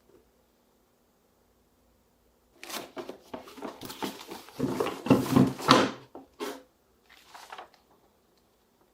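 Marbles clattering and rolling along a wooden marble-run track: a dense run of clicks and knocks lasting about four seconds, loudest past the middle, then a shorter, fainter patch of clicks near the end.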